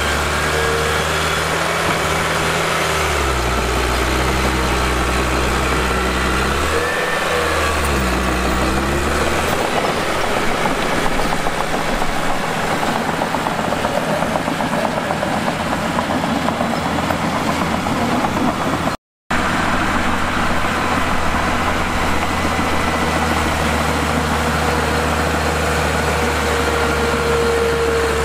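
Diesel engine of heavy earth-moving equipment running, its pitch dipping and rising twice in the first several seconds, then a longer stretch of rougher, denser engine noise. A brief cut to silence comes about two-thirds of the way through, and the engine then runs steadily.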